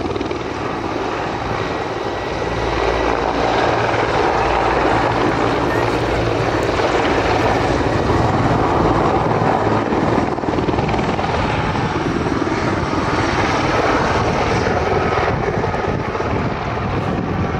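Mi-24 attack helicopter flying a low display pass: its twin turboshaft engines and large main rotor give a steady, loud rotor beat with blade slap over turbine noise, growing louder about two seconds in.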